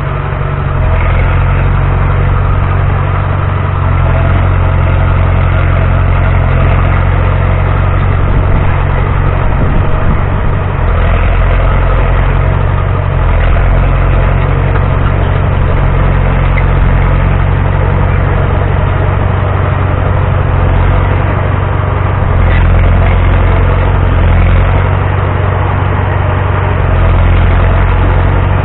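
Caterpillar D4C crawler dozer's diesel engine running steadily as the machine pushes and levels soil with its blade.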